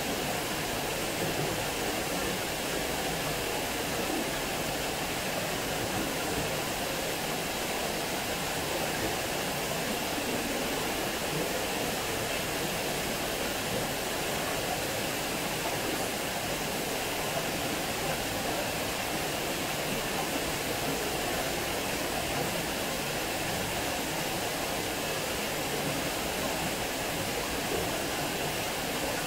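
Water falling over a small weir and splashing into the pool below: a steady, unbroken rushing noise.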